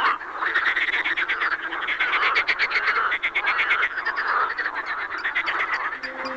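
A chorus of male marsh frogs croaking: many overlapping calls, each a fast rattling run of pulses, swelling and fading in waves. These are the males' spring mating calls.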